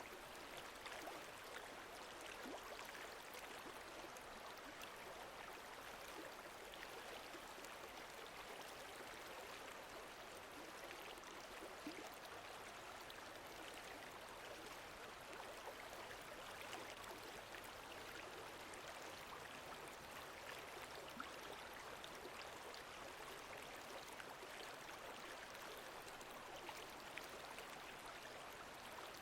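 Faint, steady sound of lake water moving, an even wash with small ticks scattered through it.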